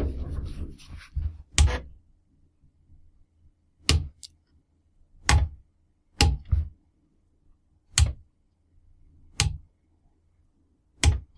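Floppy drive's stepper motor and head clicking in sharp single ticks about every one and a half seconds, some in quick pairs, as an Arduino toggles its step direction. A short noise comes just before the first click.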